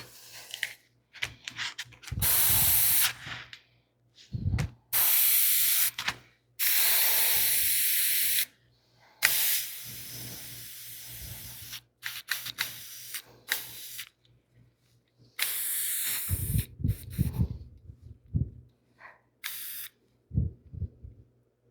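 Airbrush spraying in separate bursts of hiss lasting one to three seconds, one of them fading to a weaker hiss partway through, with light handling knocks between bursts. The air supply is running down because the compressor has been unplugged, and the brush may also be partly clogged.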